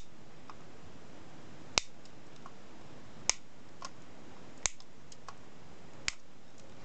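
Side cutters snipping off excess transistor leads on a circuit board: five sharp clicks, one about every second and a half.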